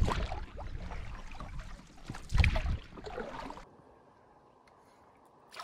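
Water splashing and lapping along a moving canoe under paddle strokes, with a low rumble and one louder splash about two and a half seconds in. The sound cuts off abruptly to near quiet about three and a half seconds in.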